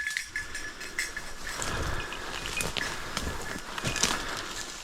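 Irregular rustling and snapping of dry leaves and brush being pushed through underfoot, with a faint steady high tone early on.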